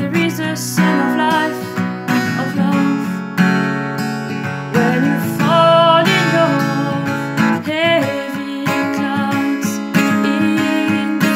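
Acoustic guitar music, chords strummed on steel strings.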